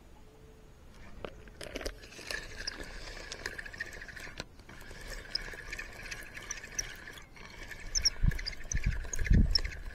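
Outdoor creek-side ambience: a steady high-pitched chorus with many short chirps over it, setting in about a second and a half in. A few low thumps come near the end.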